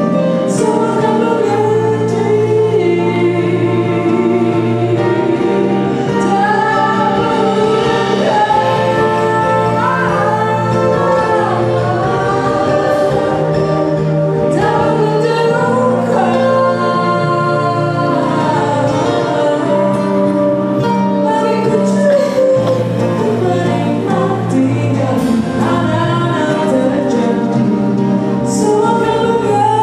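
A woman singing a jazzy soul song live with a band, acoustic guitar and keyboards under her voice. Her sung lines rise, fall and waver over steady held chords, without a break.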